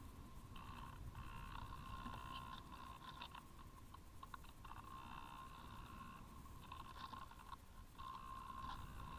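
Brushless electric motor of a Parkzone Radian Pro model glider, heard faintly through the onboard camera, whining in spells of one to two seconds as the throttle is worked, over a low rumble of wind on the airframe.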